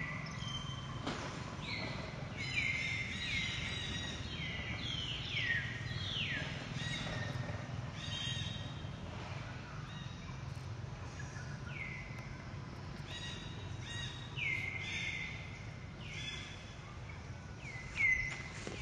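Several birds calling over and over, each call a quick downward-sliding note that levels off, the calls overlapping one another above a steady low background hum. A brief knock near the end.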